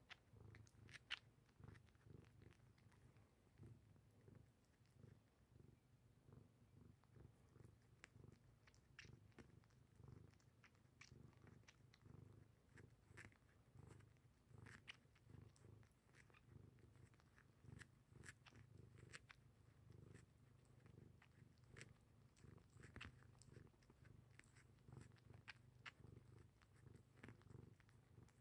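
A cat purring softly and steadily while suckling and kneading a fleece blanket, with scattered soft clicks from the suckling.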